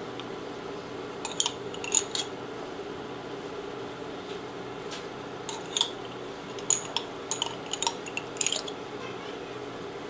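A spoon clicking and tapping in short clusters while thick hot chili paste is spooned onto a stir-fry of rice cakes and bok choy, over a steady low hum.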